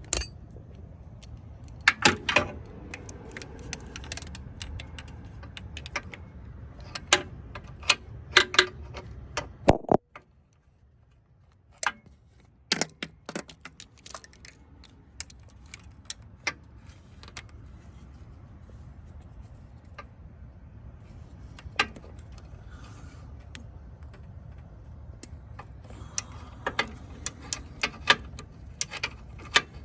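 Socket ratchet clicking and metal tools clinking while the bolts holding an engine pulley are undone, in irregular bursts of sharp clicks.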